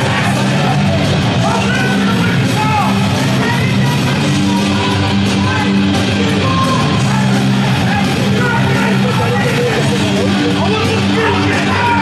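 Loud music with a steady bass line and singing.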